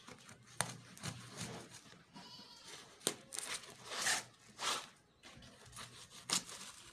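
A small knife slicing and scraping through the packing tape and cardboard of a delivery parcel, with the box rustling as it is turned: a run of short, sharp scrapes, the loudest a little after three and four seconds in.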